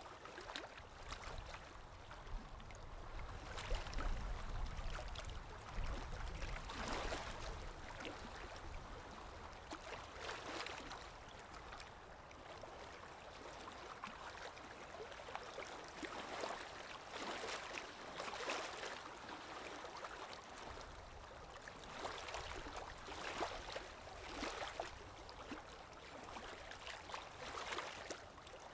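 Running stream water gurgling and splashing, swelling and easing in uneven surges every few seconds.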